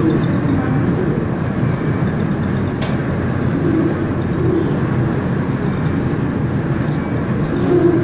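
Steady rumble of a tower elevator car running down its shaft, heard from inside the car, with a faint murmur of passengers' voices under it.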